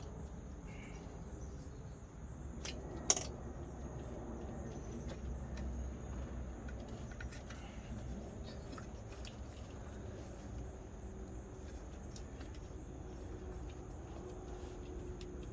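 Small scattered clicks and handling noises of the throttle cable and electrical plug connectors being unhooked from a 2002 Toyota 4Runner's throttle body, with one sharp click about three seconds in, over a low steady hum.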